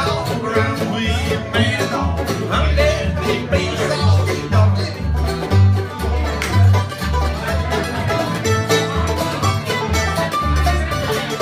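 Acoustic bluegrass band playing: banjo, flat-top guitar and mandolin picking over an upright bass that thumps out steady bass notes on the beat.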